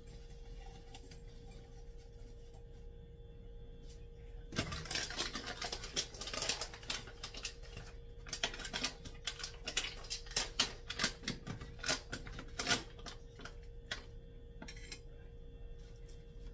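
Crinkling and rustling of a foil coffee bag being handled and opened: a dense run of sharp, irregular crackles from about four seconds in until about thirteen seconds, over a steady faint hum.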